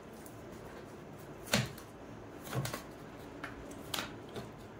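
Handling noise from inflated long latex modelling balloons: about four short taps and rubs, the loudest about a second and a half in.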